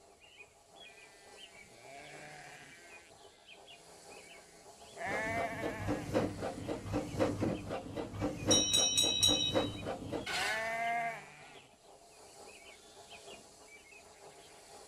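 A farm animal bleating loudly for several seconds in a pulsing, wavering call, over faint background animal and bird calls.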